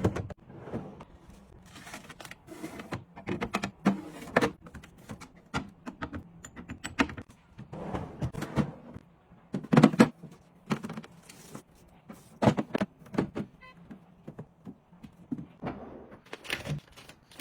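Items being handled and set down on a hard surface: an irregular series of clicks, taps and thunks, the loudest a little past the middle.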